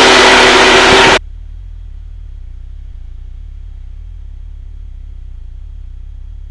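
Loud radio hiss with a steady tone cuts off suddenly about a second in as the transmission ends, leaving a steady low hum of aircraft noise over the intercom.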